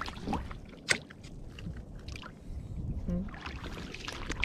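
Shallow water sloshing and splashing as someone wades through it, with one sharp click about a second in.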